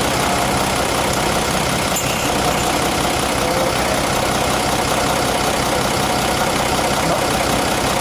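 Nissan FE6 inline-six diesel engine idling steadily.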